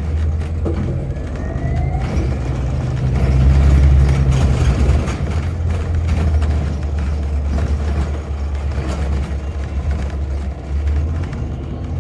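City shuttle bus driving, heard from inside: a loud, steady low engine and road rumble that swells about three to five seconds in, with a faint rising whine early on, and falls away near the end.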